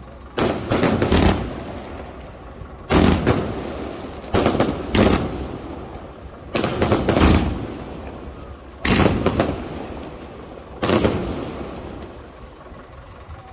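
Fireworks going off: about ten sharp bangs at irregular intervals, a second or two apart, each trailing off briefly. The last bang comes about eleven seconds in.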